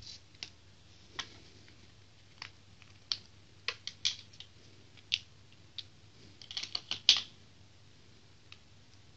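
Light clicks and clatter of AA rechargeable batteries being handled and set into a clear plastic battery case, with a quick run of clicks, the loudest, about seven seconds in.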